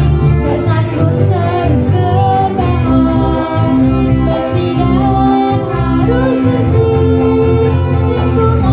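Children singing a jingle into microphones, amplified through PA speakers, over live band accompaniment of electric guitar, keyboard and drum.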